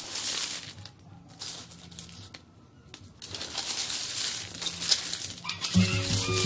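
Small white stones clicking and scraping against each other and a hand trowel as it digs into loose stone gravel. Background music comes in near the end.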